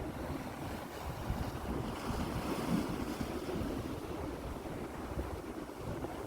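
Sea waves washing against the shore with wind buffeting the microphone, a steady rushing noise with a deep rumble.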